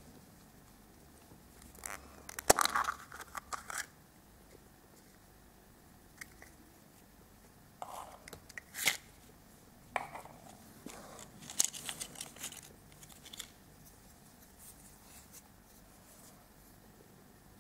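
A clear plastic toy capsule being pried open with sharp clicks and snaps, then the paper and plastic packing inside crinkling and tearing in several short bursts as a small plastic toy is taken out.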